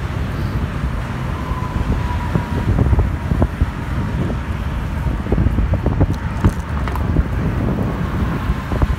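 Wind buffeting the microphone of a moving e-bike riding over grass, with short rattles and knocks from the bumpy ground, over the steady sound of highway traffic.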